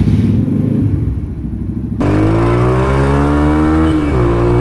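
Yamaha YB125Z DX single-cylinder four-stroke fitted with a Hayabusa aftermarket exhaust: just started and running unevenly, then, after a cut about two seconds in, under way with a steady engine note that slowly eases down, with a brief dip near the end.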